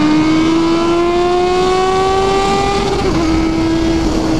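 Kawasaki Z750's inline-four engine pulling hard under acceleration, its pitch rising steadily, with a brief break about three seconds in after which the pitch levels off. Wind rushes over the helmet microphone.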